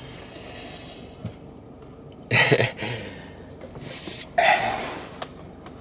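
Two short, breathy vocal sounds from a person, without words, about two and a half and four and a half seconds in, over a quiet steady hiss.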